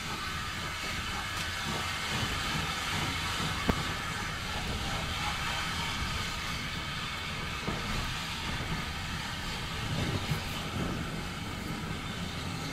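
Steam train: a steady hiss over a low rumble, with one sharp click nearly four seconds in.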